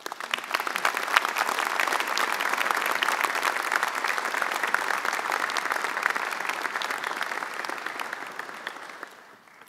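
Audience applause in a large hall: many people clapping at once, starting abruptly, holding steady for about eight seconds, then dying away near the end.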